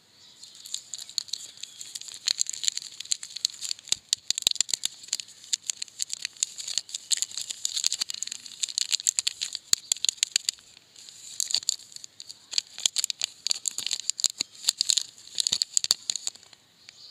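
Plastic wrapper of a wafer chocolate bar crinkling and crackling as it is torn open and peeled off by hand: dense, quick crackles with a short pause about eleven seconds in.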